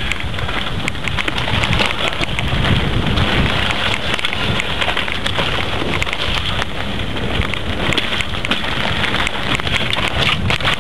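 Mountain bike descending a rough dirt trail at speed: a steady rush of wind on the mounted camera's microphone, with constant irregular clicking and rattling as the bike and mount bounce over the ground.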